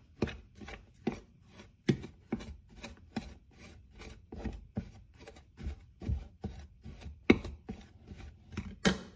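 A utensil stirring dry rice flour and brown sugar in a ceramic bowl, scraping and knocking against the bowl in quick short strokes, about four a second.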